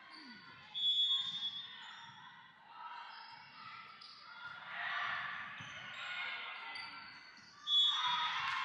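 A referee's whistle blows twice: a short blast about a second in to start the serve, and another near the end that stops the rally. In between, a volleyball is struck and thuds on the gym floor while players and spectators call out, all echoing in the hall.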